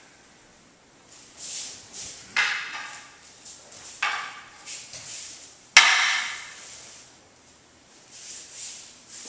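Wooden practice swords (bokken) clacking together once, a sharp loud crack about two thirds of the way in. Before it come a few softer scuffing and rustling sounds from the partners' footwork and clothing on the mat.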